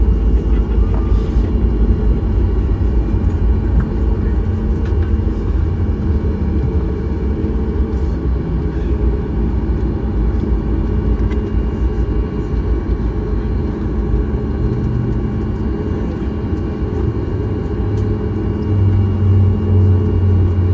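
Steady low rumble inside the cabin of a Boeing 737 MAX 8 jet airliner, easing slightly over the first part. A low hum comes up louder near the end.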